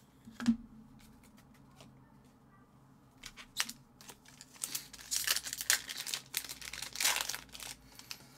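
Plastic foil wrapper of a hockey card pack crinkling and tearing as it is opened by hand, starting about three seconds in. A single soft knock comes just before, about half a second in.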